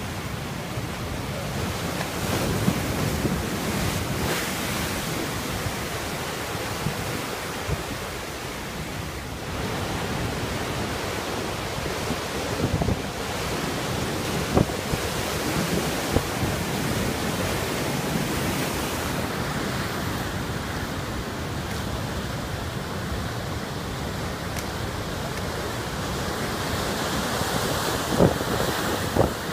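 Heavy storm surf breaking against concrete breakwater blocks below a seawall, a steady rushing wash of foaming water, with strong wind buffeting the microphone. A few brief louder crashes stand out.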